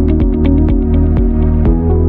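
Electronic-style background music: held chords and a steady bass under a regular beat of about two strikes a second.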